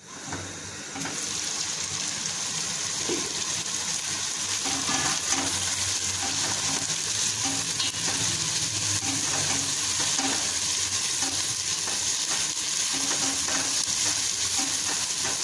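Sliced onions sizzling steadily in hot oil in a non-stick pot, stirred with a silicone spatula; the sizzle gets louder about a second in. The onions are being fried until soft.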